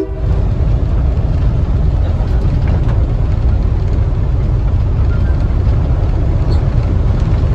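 Steady low rumble of a train, nearly all of it deep in pitch, running on without a break.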